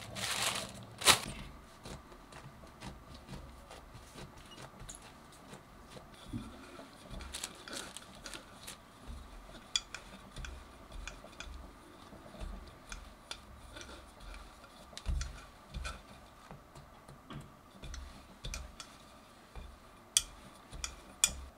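Rolling pin worked back and forth over bread dough on a countertop: soft low thuds with the strokes and scattered light clicks and taps. Near the start, plastic sheeting crinkles, with a sharp click about a second in.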